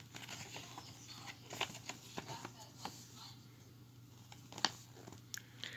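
Hands handling a toy's cardboard packaging: faint, scattered clicks and rustles, over a low steady hum.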